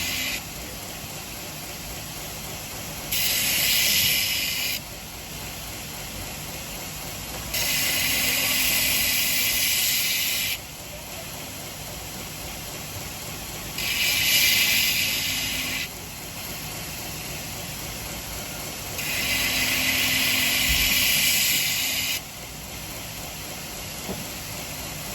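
Belt grinder running steadily while a stainless steel cleaver blade is pressed against the 120-grit belt in separate passes. Each pass is a loud grinding hiss lasting two to three seconds, with the motor running on its own between them: the end of one pass at the start, then four more.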